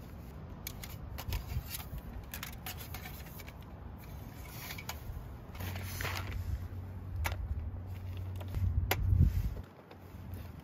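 Hands unpacking food and drinks onto a small folding table: packaging rustling and a run of light clicks and knocks as items are handled and set down, the loudest knock near the end. A low hum runs under the second half.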